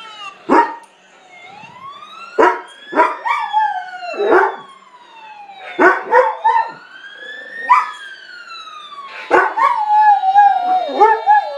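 Fire truck siren wailing in slow rising and falling sweeps while a dog barks sharply again and again. From about nine seconds in, the dog breaks into a long howl with a wavering pitch over the siren.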